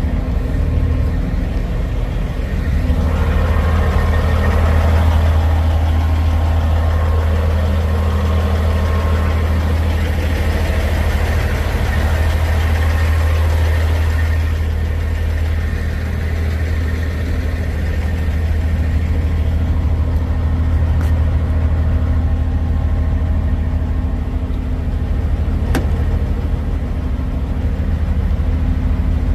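Semi-truck diesel engine idling steadily, a low drone. A single faint click near the end.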